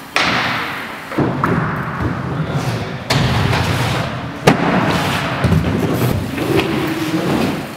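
Aggressive inline skates hitting skatepark ramps: four sharp landing thuds, the loudest about four and a half seconds in, with wheels rolling on the ramp surface between them.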